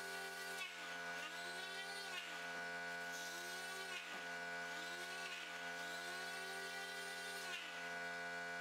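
Electric palm sander running on a metal lathe casting. Its steady buzz rises and dips in pitch every second or two as it is worked back and forth.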